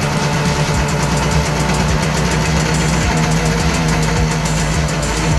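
Suzuki Max 100's two-stroke single-cylinder engine idling steadily while its carburettor is being tuned for mixture and idle.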